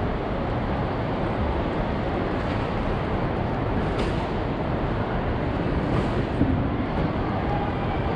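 Steady rumble and hiss of a large, busy airport check-in hall, heard on a handheld camera carried through the queues, with one brief knock about six seconds in.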